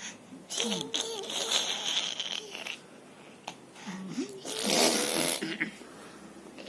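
Wordless vocal sounds in two stretches, about a second in and again near five seconds, with sliding pitch and a breathy, hissy edge.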